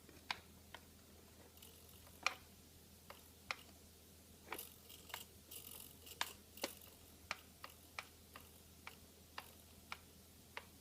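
Faint, irregular small clicks and taps from handling the parts and connectors of a small foam RC plane, with a brief hiss around the middle.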